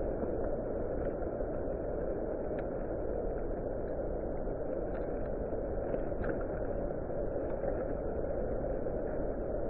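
Strong mountain wind blowing steadily across the nest-cam microphone: a constant low rumbling rush.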